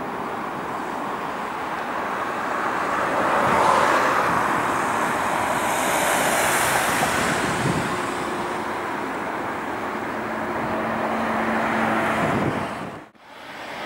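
Jet engine noise from an Airbus A220-300's Pratt & Whitney PW1500G geared turbofans during the landing roll, swelling to a peak about four seconds in, then holding steady until it cuts off abruptly near the end.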